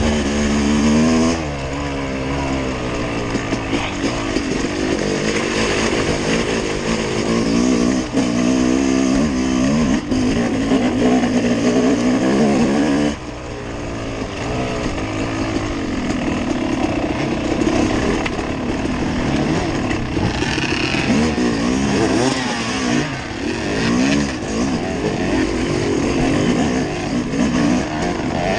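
Motorcycle engine under way, its pitch rising and falling continually as the throttle is worked. About thirteen seconds in, it drops back suddenly, then picks up again.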